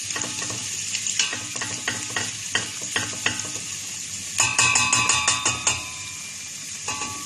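Minced garlic sizzling as it fries in hot oil in a stainless steel pot, stirred with a spatula that scrapes and taps against the pot. About midway comes a second of faster scraping with a ringing tone.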